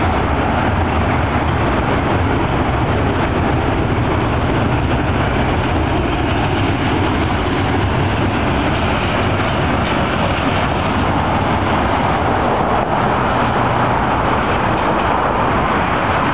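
BNSF double-stack container train rolling slowly past: steady noise of its steel wheels on the rails.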